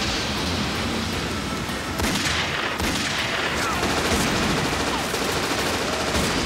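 Rapid submachine-gun fire, several guns shooting at once, over a steady hiss of heavy rain.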